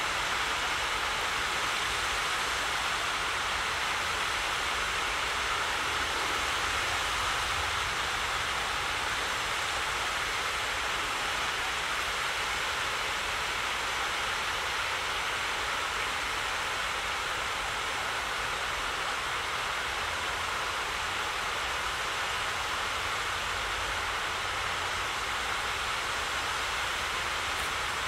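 Steady rushing of flowing water, even and unbroken, with a low rumble underneath.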